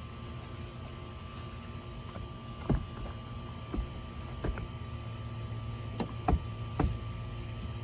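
Digging tools tapping and knocking on dinosaur excavation eggs: about six sharp taps, several close together near the middle and end, over a steady low hum.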